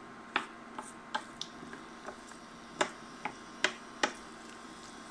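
Wooden spoon knocking and scraping against a stainless steel pan while stirring diced vegetables in butter: about ten sharp, irregular clicks, the loudest a little under three seconds in and again near four seconds. A faint steady hum runs underneath.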